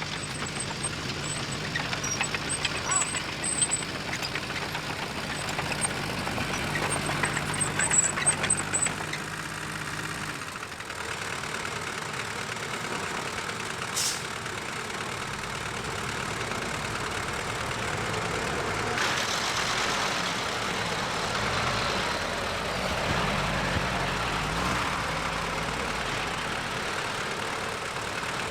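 Diesel engine of a heavy earthmoving machine running, with sharp metallic clanks and high squeaks over the first several seconds. The engine sound changes about ten seconds in, then runs on steadily.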